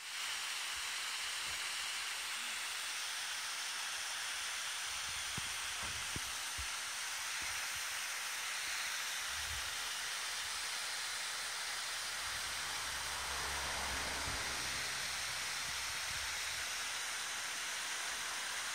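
Water pouring down a stone-lined chute at a hot spring source, a steady rushing hiss.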